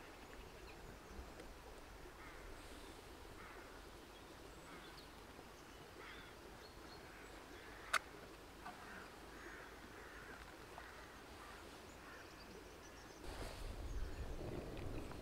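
Faint bird calls in the background, with one sharp click about eight seconds in. A low rushing noise comes in near the end.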